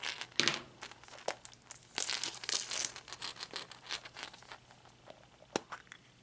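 Paper bag crinkling and hollow plastic surprise eggs clicking against each other as they are handled, the rustle densest about two seconds in. Near the end a single sharp click as a plastic egg is pulled open.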